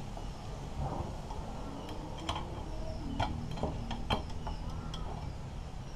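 Scattered light metallic clicks and taps as a screwdriver works against a metal motorcycle engine part in hand, a few irregular ticks a second, over a low steady hum.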